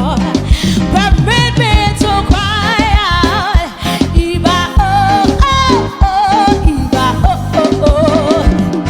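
Gospel praise song: a singer with wavering vibrato over a band with drums and bass.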